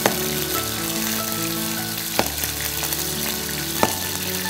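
A chef's knife slicing through a peeled potato onto a plastic cutting board, three sharp knocks about two seconds apart, over a steady sizzle of frying and soft background music.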